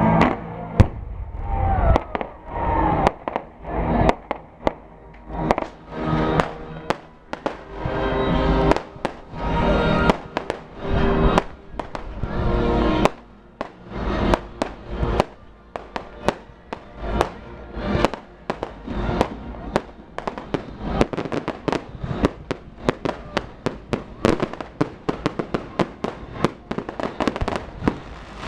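Fireworks going off in a rapid, continuous string of sharp bangs, coming thicker and faster in the second half, with music playing underneath in the first half.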